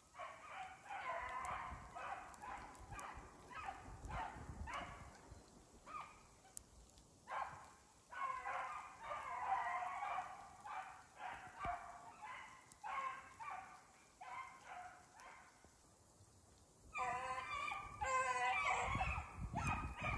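Hounds baying in a run of short, repeated cries while running a hare's track. The baying grows louder and fuller about three-quarters of the way in, and a low rumble comes in near the end.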